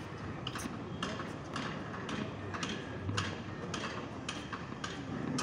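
Sharp taps repeating at an even pace, about three a second, from footsteps on a hard tennis court.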